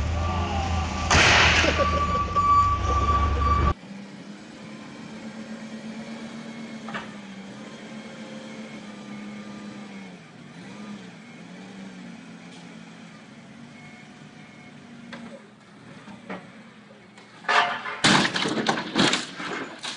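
Forklift engine running steadily, its pitch rising and falling a little, while it holds a tall wooden crate high on the mast; near the end a series of loud crashes as the crate tips off the forks and hits the ground. In the first few seconds, a loud burst of noise and a steady high tone.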